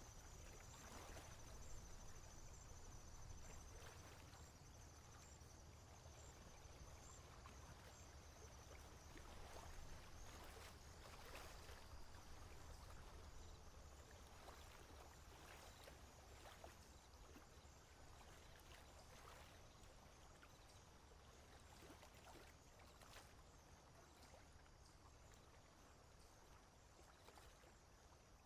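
Near silence: faint outdoor ambience with a low rumble and a few soft clicks, plus a faint high pulsing chirp in roughly the first third.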